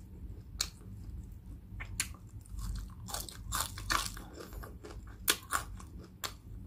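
Close chewing and biting of crispy pata (deep-fried pork knuckle), with sharp crunches of the crackling skin every second or so.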